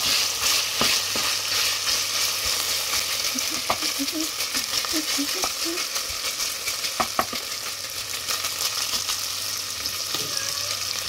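Bacon sizzling and crackling as it fries in a pan while being stirred, with a few sharp knocks of the utensil against the pan.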